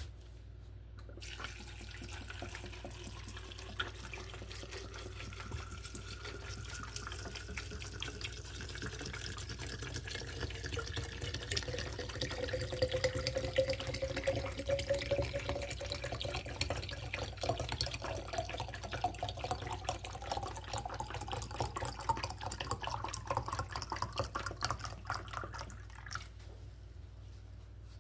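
Liquid running steadily into a container, its pitch rising as the container fills. It starts about a second in and stops shortly before the end.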